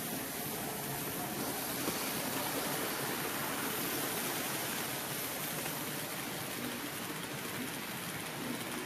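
HO-scale model train passing, a locomotive followed by old-style passenger coaches, with the steady noise of its wheels rolling on the rails.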